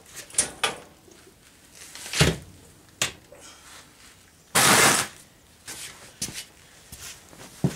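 Metal clunks and knocks as a loosened Tecumseh engine is lifted off a go-kart's frame. The heaviest knock comes about two seconds in, then a sharp click, and a half-second scraping rush of noise about halfway through.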